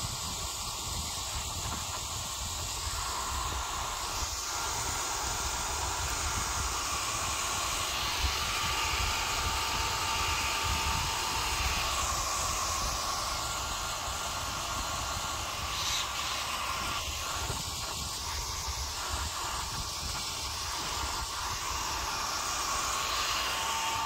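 Small handheld hair dryer running: a steady rush of blown air whose tone shifts every few seconds as it is moved about.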